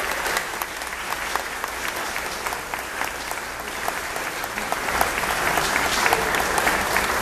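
Audience applauding, a dense patter of hand claps that grows a little louder about five seconds in.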